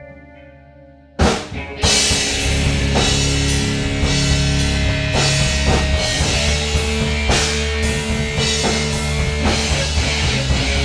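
Rock band jamming: a sustained electric guitar chord rings and fades, then about a second in the full band crashes in loud with drums, cymbals, bass and electric guitar playing a steady heavy groove.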